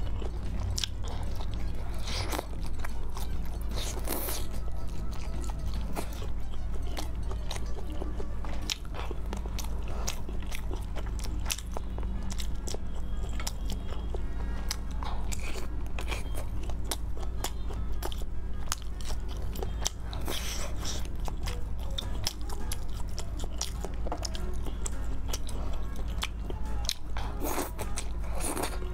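Close-miked eating: biting into and chewing fried battered food, with repeated crisp crunches and wet chewing, a few bites standing out louder than the rest.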